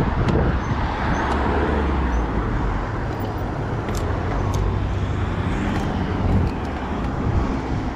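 Drop-bar bicycle rolling fast over concrete paving tiles: a steady rumble of tyre and wind noise, with scattered light rattles and clicks.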